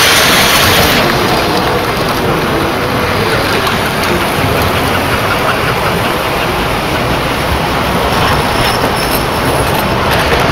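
O-gauge model train, a diesel locomotive pulling a boxcar, running past on three-rail track with a steady rolling rumble of wheels on rail.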